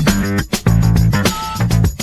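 Music: a funky groove with plucked guitar and a bass line over a steady drum beat.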